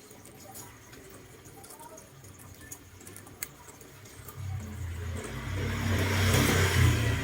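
A motor vehicle going past: a low rumble with rushing noise builds from about four seconds in and is loudest near the end. Before it, only a couple of faint clicks.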